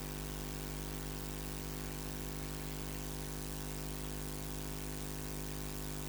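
Steady electrical hum and hiss with no voice or other sound: the noise of a dead or faulty audio feed while the sound is not coming through.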